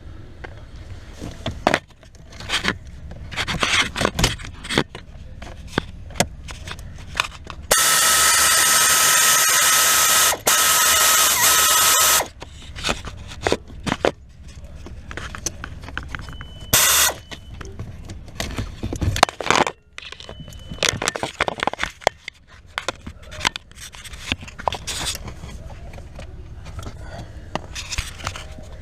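A cordless drill or screwdriver runs for about four seconds near the middle, driving fasteners while the dashboard is taken apart to replace the heater blend-door actuator. Scattered clicks and knocks of handling parts and tools come before and after it.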